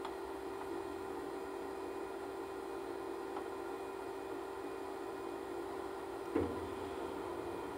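Steady mechanical hum of grain-unloading machinery while shelled corn drains out of a gravity wagon, with a single sharp knock about six and a half seconds in.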